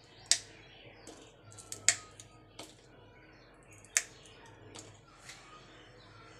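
Fresh green chillies snapped into pieces by hand over a wooden mortar: about six sharp, crisp snaps, the loudest near the start, about two seconds in and about four seconds in.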